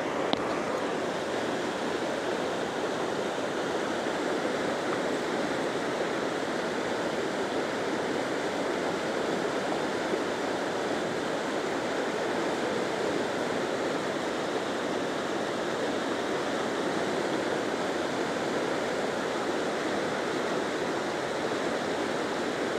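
Flowing floodwater rushing steadily, an even unbroken roar of water.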